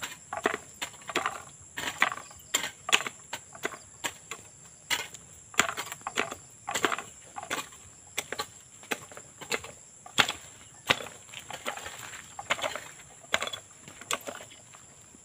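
Hand hoe chopping and scraping into soil while weeding between young corn plants: an uneven series of chops, about one or two a second. A steady high insect buzz runs behind.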